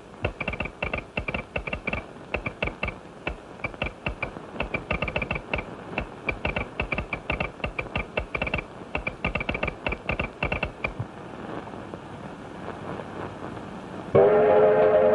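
Rapid sharp metallic clicking in irregular runs with short pauses, stopping about eleven seconds in. Near the end a steam locomotive whistle starts blowing a loud steady chord.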